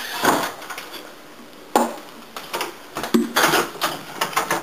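Several sharp knocks and clatters of hard objects striking, spaced irregularly.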